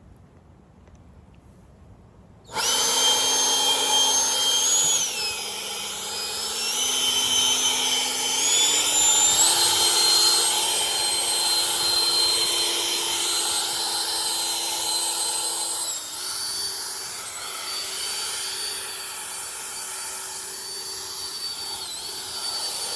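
Bullseye Blower, a 20-volt cordless handheld turbo-jet leaf blower, switched on about two and a half seconds in and running with a loud high whine. Its pitch steps down and up several times as it blows.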